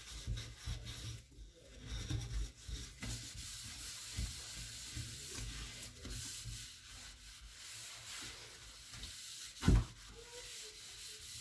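Scouring sponge scrubbing baking-soda paste over a stainless steel sink in steady rubbing strokes, with a single sharp knock against the sink near the end.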